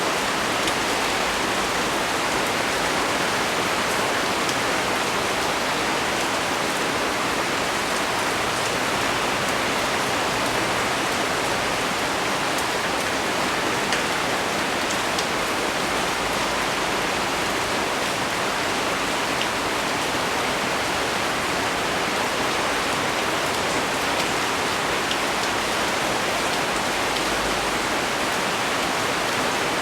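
Heavy rain pouring down steadily, a dense even hiss with many small drop ticks from rain hitting leaves.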